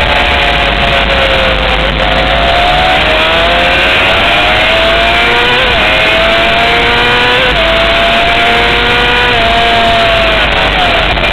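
Honda CBR600 motorcycle's inline-four engine pulling hard on track, heard from an onboard camera with heavy wind rush. The engine note rises and falls, with several sudden steps in pitch as gears change.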